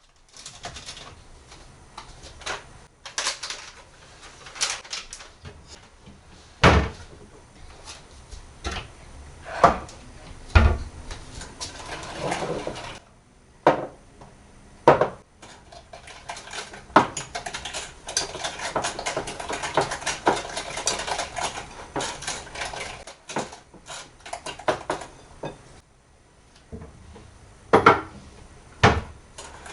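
Kitchen work: dishes, pots and utensils clattering and cupboard doors knocking, in many separate sharp knocks, with a few seconds of steadier hiss-like noise partway through.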